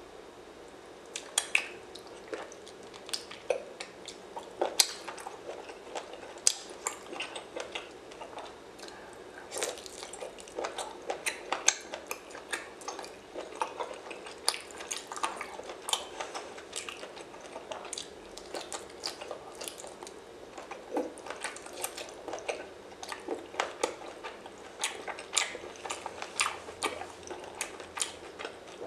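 Eating sounds from octopus in sauce: irregular sharp clicks and smacks as the tentacles are handled in a glass bowl of sauce and chewed, over a steady low hiss.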